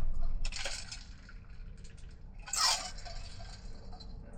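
Handling noises of work inside a cabinet: light clinks and knocks of small hard objects, with a brief scraping burst about two and a half seconds in.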